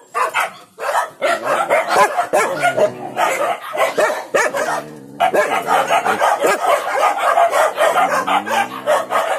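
Many Indonesian village dogs (anjing kampung) in their kennels barking together in a continuous, overlapping din, excited as they wait to be fed. The noise dips briefly about five seconds in.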